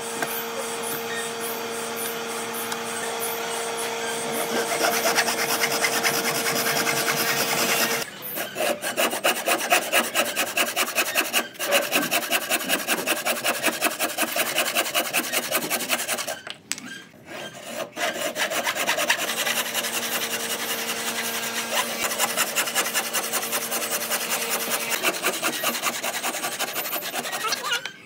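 A tool abrading wood with fast, even strokes, as in rasping or sanding, with a steady hum underneath in parts and a few brief breaks.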